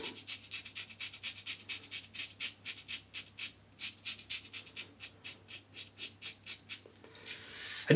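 Schick Type L injector razor scraping stubble through shaving lather in short, quick strokes, about four a second, stopping shortly before the end.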